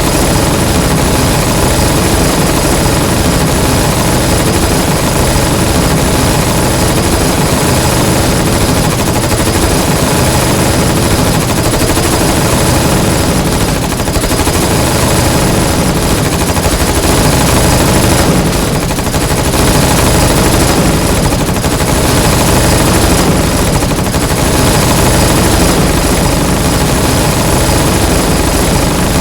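Continuous rapid submachine-gun fire from several guns at once, dense and unbroken, with only brief slight dips.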